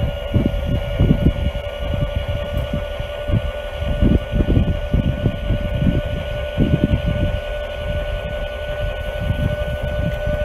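Electric tongue jack on a travel trailer running steadily, its motor whining at one even pitch as it lowers the trailer tongue. Underneath is a loud, irregular low rumble with thumps.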